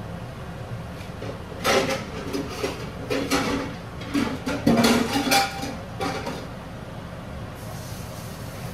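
Pots and pans clattering in a kitchen, a run of metal knocks and clanks as a pan is got out and handled, over a steady low hum.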